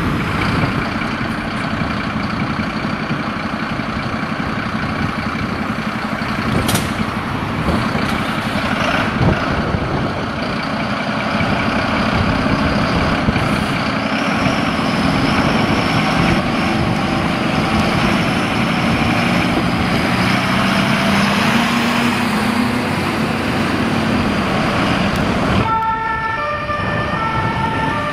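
Fire engines' diesel engines running as they pull out of the station bays, one revving up about twenty seconds in. Near the end a two-tone German fire-engine siren (Martinshorn) switches on, alternating between two notes.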